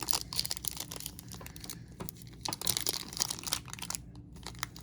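A trading-card pack wrapper being torn open by hand, with crinkling and crackling of the wrapper in quick, irregular bursts.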